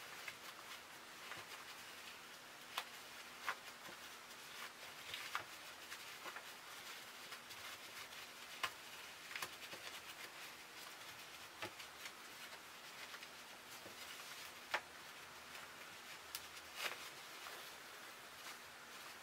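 Faint rustling of cotton fabric and fusible fleece being worked by hand as a lined glasses case is turned right side out, with scattered small sharp ticks from the handling.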